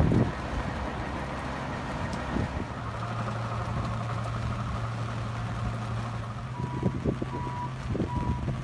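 Farm vehicle engine running steadily, with a reversing alarm beeping three times near the end.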